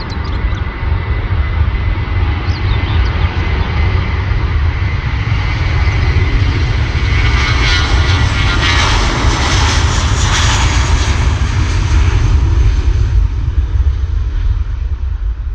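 Airbus A320 twin jet engines at takeoff power: a loud rumble whose hiss builds to a peak as the aircraft passes about halfway through, then fades away.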